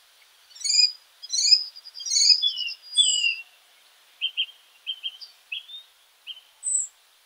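Bird chirps and whistles: short high notes that sweep up and down in quick groups during the first half, then a run of brief clipped chirps, ending with one high falling note.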